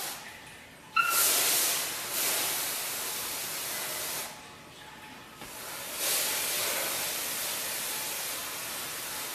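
Can of compressed air held upside down, spraying its liquid propellant onto window glass to freeze it: a long hiss that starts sharply about a second in and stops after about three seconds, then after a short break a second long hiss.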